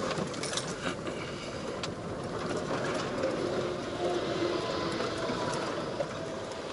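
Ford Focus 2's 1.8-litre four-cylinder engine running as the car rolls slowly over wet gravel, heard from inside the cabin, with light clicks of the tyres on the stones. The engine has an injector fault that makes it shake hard at idle.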